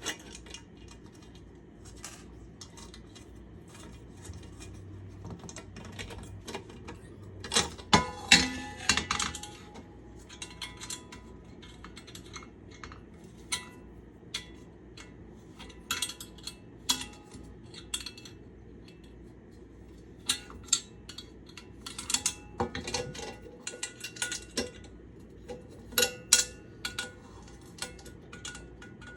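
Scattered metallic clinks and taps as a screwdriver, wrench and small nuts knock against a stainless steel pan while its handle is bolted on, with busier flurries of clinking about eight seconds in and again near the end.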